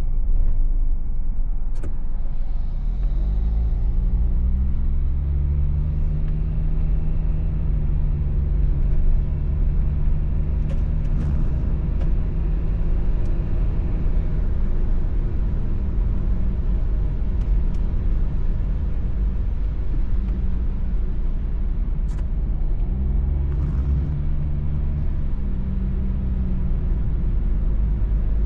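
Car engine and road rumble heard from inside the cabin while driving in rain. The engine note climbs as the car accelerates, a little after the start and again near the end, with a few light clicks over the steady low rumble.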